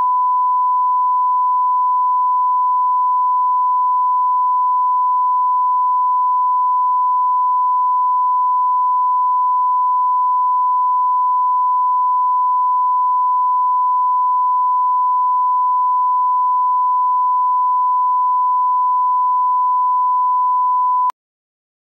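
1 kHz reference test tone that goes with colour bars, a steady pure beep at one pitch. It cuts off suddenly near the end.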